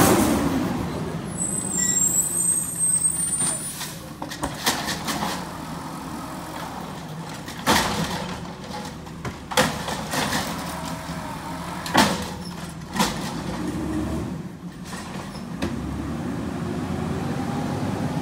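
Amrep automated side-loader garbage truck driving off, its engine loudest at the start while close by and fading as it pulls away. About half a dozen sharp clacks sound as it goes, with a brief hiss early on.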